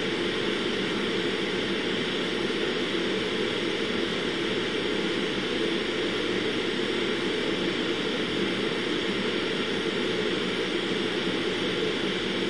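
Steady, unchanging rushing noise with a low hum, the fan and ventilation noise of a robotics lab; no distinct motor whine or clunk stands out.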